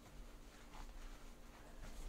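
Quiet room with a low steady hum and two faint soft rustles, about a second in and near the end, from gloved hands pressing a mineral wool batt into a stud bay.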